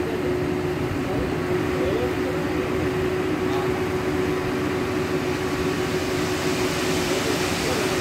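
Diesel machinery running steadily with a constant hum as a tipper lorry's hydraulic hoist raises its bed. Near the end a hiss grows as the load of quarry dust starts to slide out of the tilted body.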